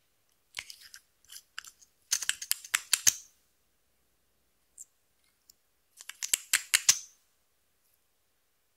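Lip gloss tube handled and its applicator wand pressed and dragged over clear slime, giving three bursts of quick crackling clicks, the loudest at about two to three seconds and about six to seven seconds in.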